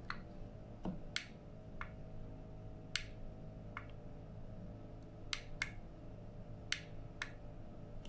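Sharp clicks, about ten at uneven intervals, as the buttons of a handheld four-button universal garage-door remote are pressed, over a steady low hum.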